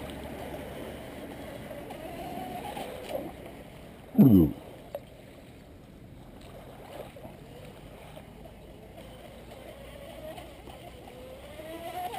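Electric RC speedboat's Leo 2845 brushless motor and two-blade aluminium propeller whining as it runs out on the water, the pitch slowly rising and falling. About four seconds in, a short, loud whine sweeps steeply down in pitch.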